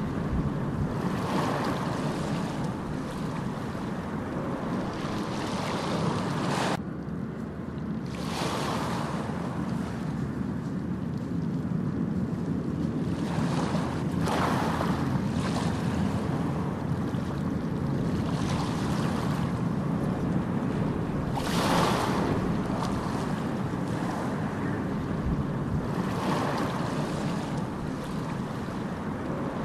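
Steady rushing noise that swells and fades every few seconds, with a brief drop about seven seconds in.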